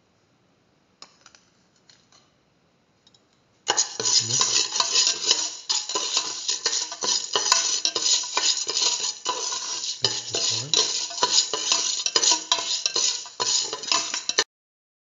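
A spoon stirring soaked mung beans and salt in a stainless steel pressure cooker, scraping and clinking against the metal bottom. It starts about four seconds in, after a few faint ticks, and stops shortly before the end.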